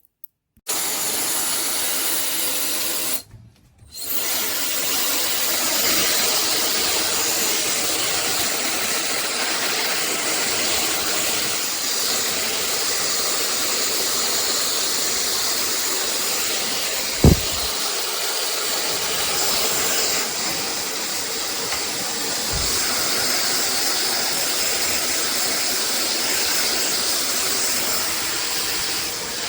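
Hair dryer with a high-speed brushless motor blowing steadily. It cuts out briefly a few seconds in and then picks up again, and there is a single short thump about halfway through.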